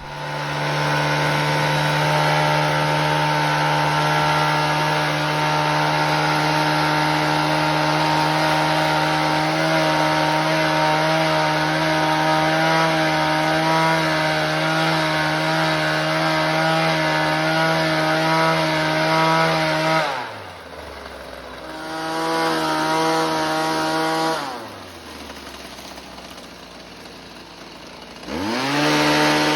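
A loud motor-driven machine running at a steady pitch with a strong hum. About twenty seconds in it winds down, comes back up briefly, winds down again, then spins back up near the end.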